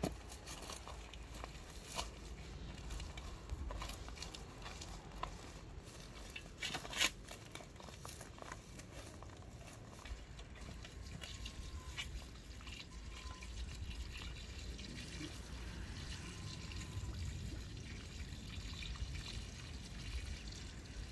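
Water pouring from a plastic watering can onto loose soil: a soft trickle, with a few short knocks before it.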